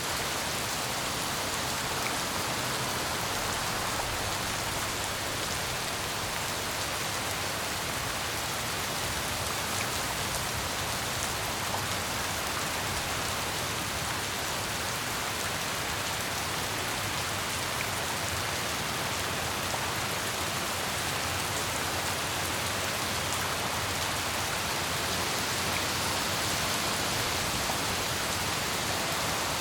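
Steady heavy rain falling and pattering on surfaces, an even hiss with scattered drop ticks.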